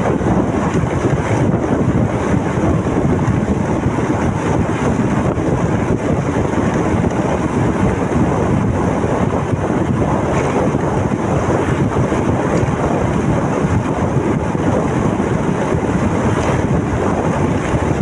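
Loud, steady wind rush buffeting the microphone of a camera on a moving motorcycle, with the bike's running and road noise underneath.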